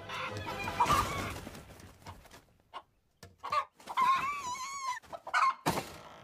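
Hen clucking and squawking, with a long wavering squawk about four seconds in.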